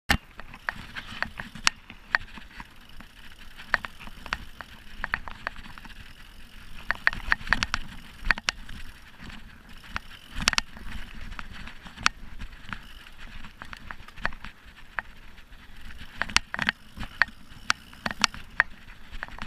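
Mountain bike clattering over rough dirt singletrack: irregular sharp clicks and rattles from the bike as it jolts over bumps, over a steady low rumble of tyres on dirt.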